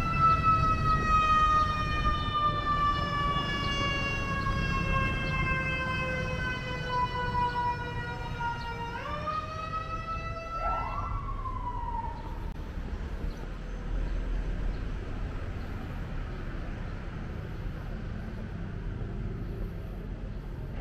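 A siren sounding one long steady tone that slowly sinks in pitch, then swoops up twice about nine and eleven seconds in before dying away by about twelve seconds. A low rumble of street noise runs under it and is all that remains afterwards.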